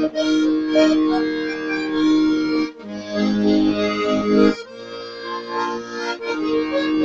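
Instrumental break between sung verses of a song: held chords with no singing, changing to a new chord about three times.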